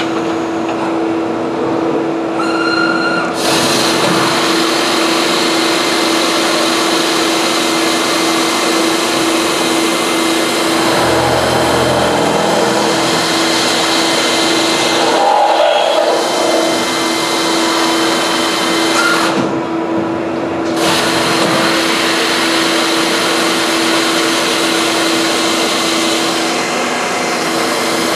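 CNC plate drilling machine's spindle cutting steel plate under coolant spray: a steady machine noise with a constant tone and hiss. A low rumble joins about eleven seconds in, and the high hiss drops out for about a second near twenty seconds.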